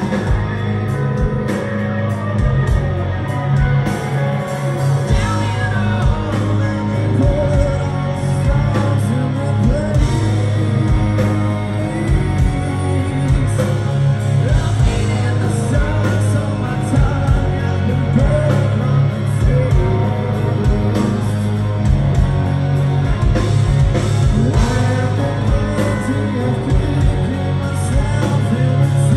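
Live rock band playing: distorted electric guitars, bass and drums, with a male lead vocal singing over them, heard from the audience in a concert hall.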